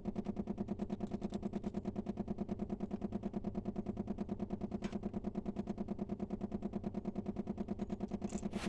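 A machine's steady hum, pulsing evenly at about ten beats a second.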